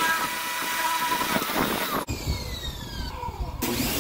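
John Deere A16 pressure washer running: the pump motor whines steadily under the hiss of the water jet. About two seconds in the spray stops suddenly and the motor's pitch falls as it slows, then it picks up again near the end.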